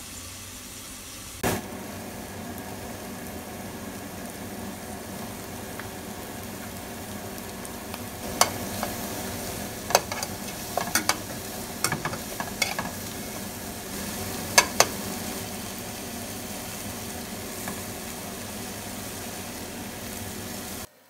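Kimchi, sliced onion and fish cake sizzling in a frying pan as they are stir-fried with metal tongs. Scattered sharp clicks come from the tongs striking the pan, most of them in the middle of the stretch. The sizzle cuts off suddenly near the end.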